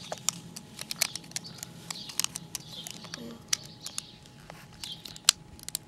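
Plastic Lego bricks and plates clicking together and tapping against each other as small hands handle them, an irregular run of sharp clicks with one louder click about five seconds in.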